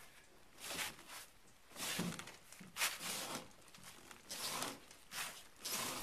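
A man straining to shove and yank a heavy boat hull sitting on tires: a run of short, noisy bursts of effort and scuffing, about seven in six seconds, as he pushes until it starts to move.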